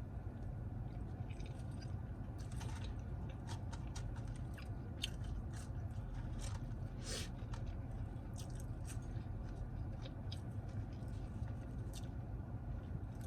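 A person chewing fast food close to the microphone: irregular small wet clicks and crunches of mouth sounds, over a steady low hum.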